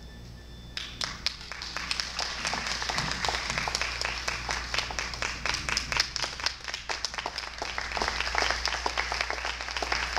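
Audience applause, many hands clapping, starting about a second in and carrying on steadily.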